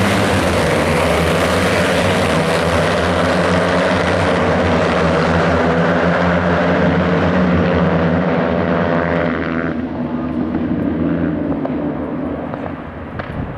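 A pack of Kawasaki Ninja 300 parallel-twin race bikes pulling away from the grid together, a loud dense mass of revving engines. About ten seconds in it drops away and fades as the pack draws off into the distance.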